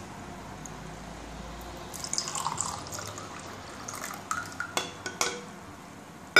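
A fizzy dark drink poured from a can into a ceramic mug, splashing as the mug fills. A few light clinks follow, then a sharp, loud knock at the very end.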